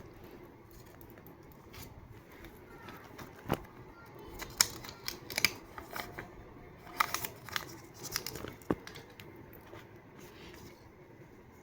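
Scissors snipping paper: a run of sharp cuts in the middle few seconds, with quieter handling in between.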